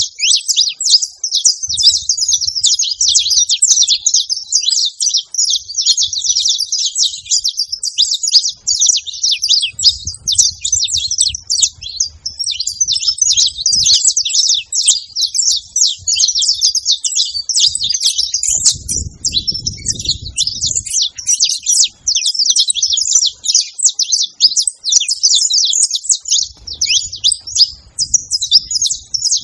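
Saffron finches chirping and singing in a dense, unbroken chorus of many overlapping high, quick chirps.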